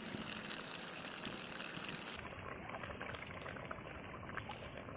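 Spiced gravy boiling and bubbling in a wide metal pan, with a few soft plops as fried besan-coated leaf rolls are dropped into it.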